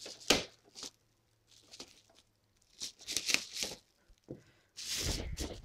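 Cardboard figure box and its packaging being handled and opened: scattered rustling, tearing and tapping, with a sharp tap just after the start and a longer spell of rustling near the end.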